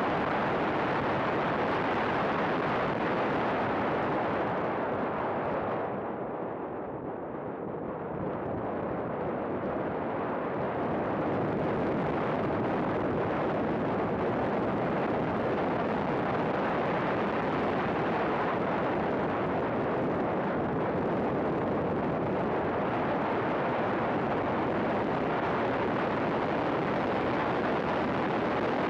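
Race car running at track speed, its engine noise mixed with heavy wind rush on the onboard camera's microphone. The sound eases and dulls for a few seconds about five seconds in as the car slows for a corner, then comes back up as it accelerates.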